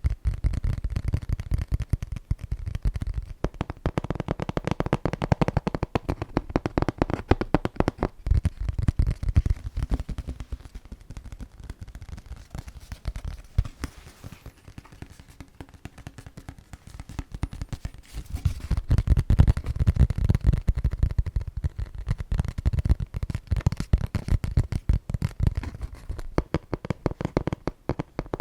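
Rapid tapping close to the microphone, many quick taps a second, easing off for a few seconds in the middle before picking up again.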